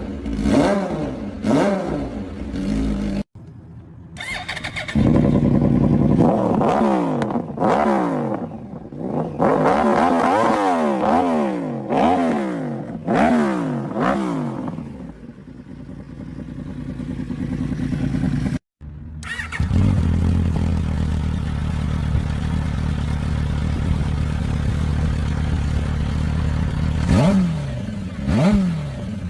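Sport motorcycle engines being revved in a series of short clips: many quick throttle blips, the revs rising and falling sharply again and again, then a steady idle for several seconds with a couple more blips near the end.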